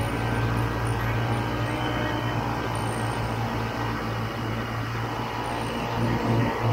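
1967 Ski-Doo Olympique 250's two-stroke engine running steadily as the sled rides through deep snow.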